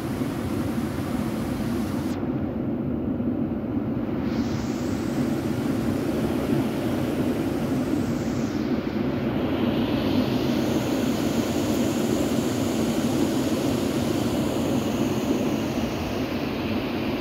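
Steady, even rushing noise with no distinct events, heaviest in its low-middle range.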